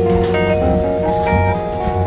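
Instrumental background music with held bass notes and light percussion.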